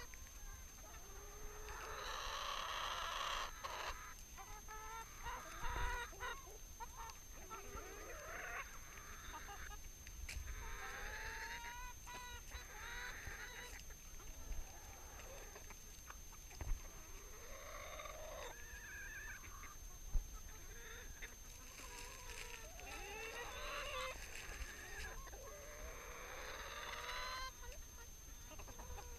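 A flock of chickens crowding close, clucking and giving harsh squawks in repeated bursts, mixed with short rising and falling calls. A few sharp knocks come through as they peck at bread held in a hand.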